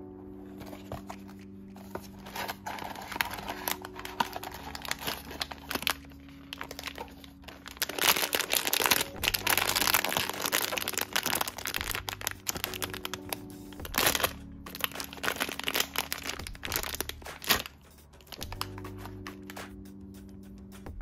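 Hands handling and opening a small cardboard blind box, with sharp clicks and scrapes, then crinkling and tearing open the thin plastic bag inside, loudest about halfway through. Soft background music can be heard at the start and near the end.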